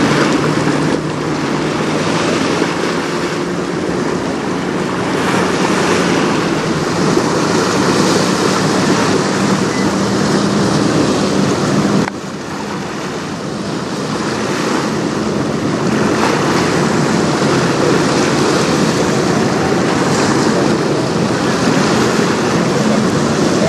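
Wind and choppy river water washing steadily, under the low steady hum of a sailboat's motor running under power. About twelve seconds in the sound cuts abruptly and is briefly quieter.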